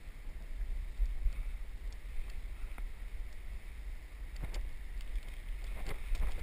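Wind rumbling on a body-worn camera's microphone, with a few faint ticks scattered through it.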